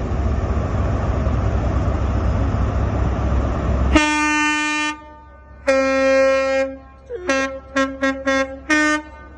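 Two-tone train horn sounding a long higher note, a long lower note, then a quick run of five or six short toots. Before it, about four seconds of loud steady rushing rumble that cuts off abruptly.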